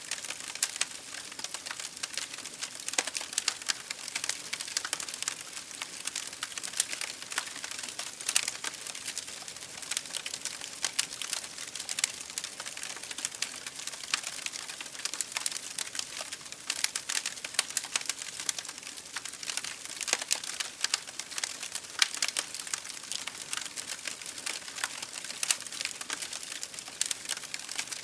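Fire burning in an open fireplace, crackling steadily with dense, irregular snaps over a soft hiss, and now and then a sharper, louder pop.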